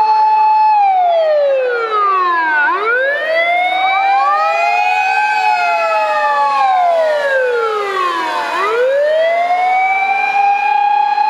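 At least two fire engine sirens wailing out of step, each holding a high tone, sliding down over about two seconds and climbing back up. The sirens belong to fire engines on an emergency run.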